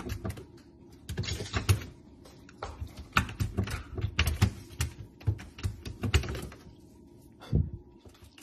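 A puppy's claws tapping and scratching at the plastic front of an open freezer drawer as it paws at it, in quick irregular clusters of clicks with short pauses between them.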